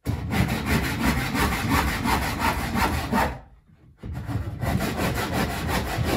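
Hand saw cutting a softwood bar in rhythmic strokes, through a knot. The sawing runs in two bouts, with a short pause about three and a half seconds in.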